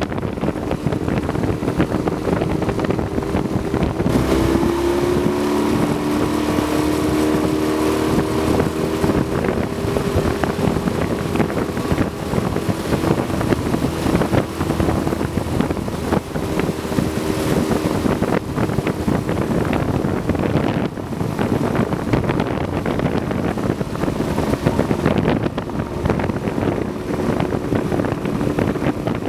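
Outboard motor driving a small aluminium boat along at a steady speed, with a steady drone and wind noise on the microphone.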